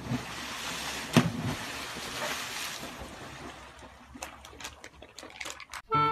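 Water splashing against a rock, heard as a steady rush of noise with a sharp knock about a second in, fading into a few small clicks.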